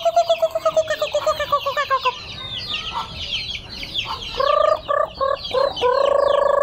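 A hen clucking in a rapid run of calls that fall in pitch, then a few short clucks and one longer drawn-out cluck near the end, over constant high peeping from her chicks. The flock is calling for feed.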